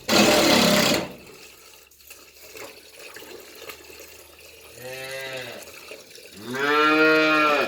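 Cattle mooing: two drawn-out moos, about five and seven seconds in, the second louder and longer, each rising and falling in pitch. A loud, rough noisy sound fills the first second.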